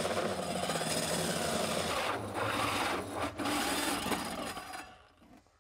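Large hole saw on a power drill cutting through a plywood bulkhead: a continuous rasping cut that eases briefly twice, then stops about five seconds in as the saw comes through.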